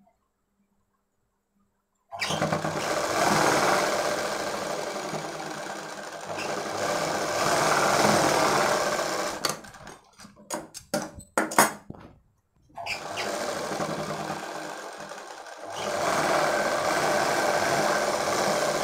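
Sewing machine stitching fabric in runs. It starts about two seconds in and runs steadily for several seconds, stops for a few seconds of scattered clicks and knocks, then runs again with a brief pause midway.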